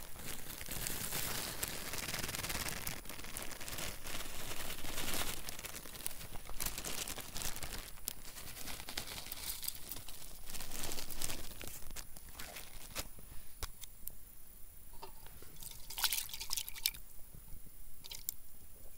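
Clear plastic zip-top bag crinkling and rustling as dehydrated spaghetti is shaken out of it into a stainless steel pot. The crinkling thins to scattered light clicks for the last few seconds.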